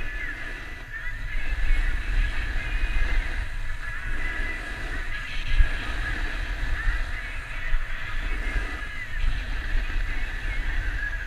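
Wind buffeting the microphone of a camera worn by a downhill skier, as a steady deep rumble. Over it, skis scrape and hiss on hard-packed groomed snow, with wavering squeaky tones from the edges coming and going.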